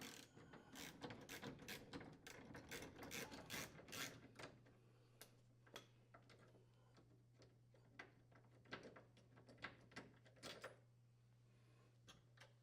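Faint quick clicking of a ratchet and 5/16-inch socket unthreading the screws of a refrigerator's lower door hinge for about four seconds, then a few scattered clicks and knocks. A faint steady low hum comes in about four seconds in.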